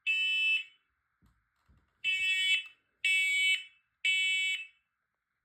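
Smoke alarm in full alarm after a test, sounding the temporal-three pattern: loud, high-pitched beeps of about half a second, one ending a group, then a pause and three more about a second apart, then a pause. A couple of faint knocks sound in the first pause.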